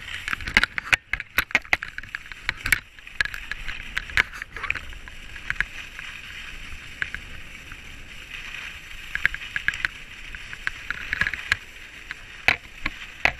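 Skis sliding over groomed snow at speed: a steady scraping hiss, broken by sharp clicks and knocks that come thickest in the first three seconds and again near the end.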